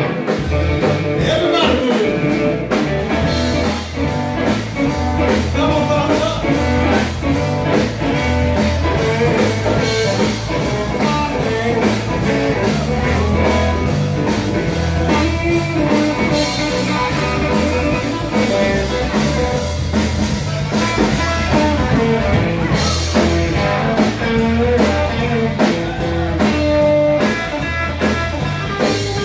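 Live band playing blues-rock: guitar over bass and drum kit, with a steady beat.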